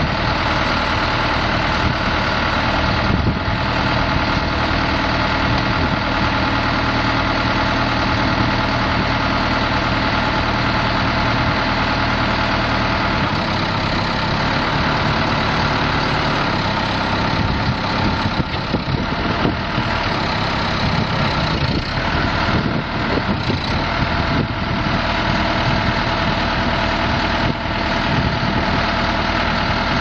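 Case 580 Super L backhoe's four-cylinder turbo diesel engine idling steadily.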